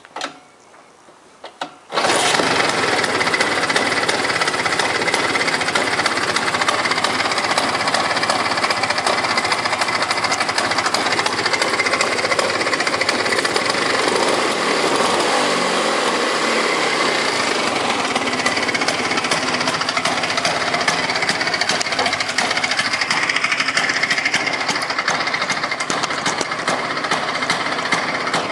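Vespa Sprint 150's single-cylinder two-stroke engine catching suddenly about two seconds in, then running steadily and loud.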